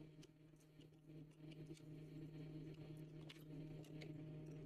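Near silence: a faint steady hum with a few faint, scattered ticks.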